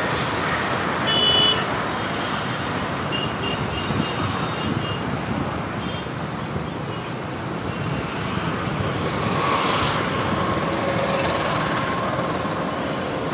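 Steady roadside traffic noise from passing vehicles, with a brief high-pitched tone about a second in.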